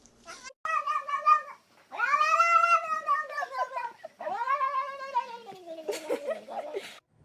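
Domestic cat yowling: three long, drawn-out calls, each longer than the last, the third sliding down in pitch near its end.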